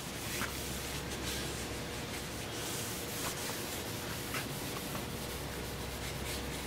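Paper towel wet with spray lubricant rubbed back and forth along a cast-iron lathe bed: a soft, steady rubbing with a few faint strokes standing out.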